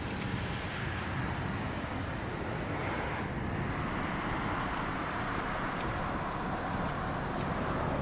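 Surf washing onto a sandy beach: a steady rushing that swells gradually through the middle and eases off near the end.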